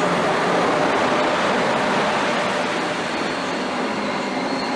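DB Class 103 electric locomotive and its coaches running past along a station platform: a steady, loud rolling and rail noise.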